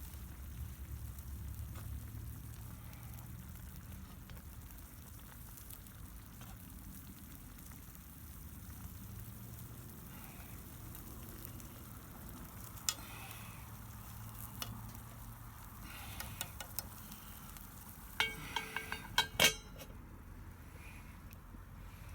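Food sizzling steadily in a pan over a campfire. A metal utensil clinks against the pan once about two-thirds of the way in, then several times in quick succession near the end.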